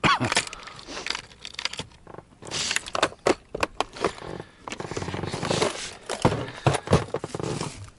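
Plastic tackle box full of wobblers being handled and packed away: hard lures clicking and clattering in their compartments, the box closed, then scraped and knocked into place under a seat, in a run of short irregular clicks and knocks.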